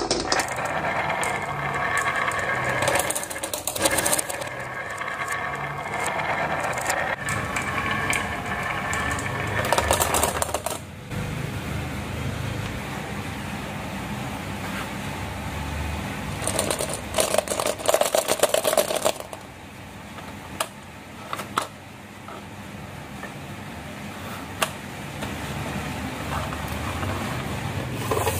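Marbles rolling and clattering along marble-run tracks and ramps, a dense rattle for about the first ten seconds. After that comes quieter rolling with scattered clicks and a short burst of clattering a little past halfway.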